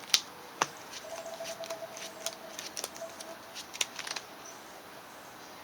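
Trading cards being handled and set down on a table: a string of short, sharp clicks and taps over about four seconds, thinning out near the end.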